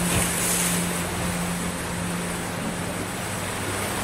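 Sea waves washing onto a sandy beach: a steady hiss of surf, with a wave breaking just after the start. A faint low steady hum runs underneath.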